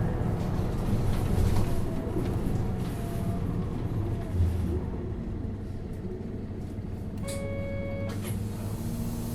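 Isuzu Erga city bus's four-cylinder turbo diesel running, heard from inside the cabin; the engine note eases and gets quieter about five seconds in. Near the end, a short electronic tone sounds for under a second.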